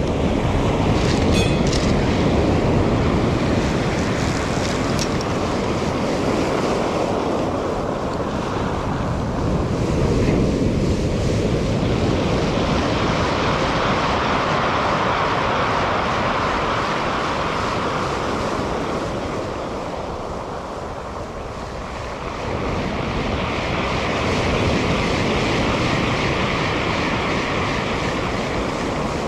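Heavy surf breaking on a steep pebble beach and washing back over the stones, the noise swelling and easing from wave to wave, with wind buffeting the microphone.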